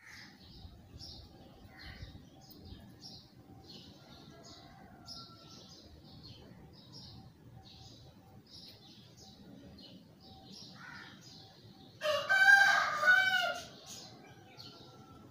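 A rooster crows once, loudly, about twelve seconds in, a single drawn-out call of about a second and a half. Small birds chirp repeatedly throughout.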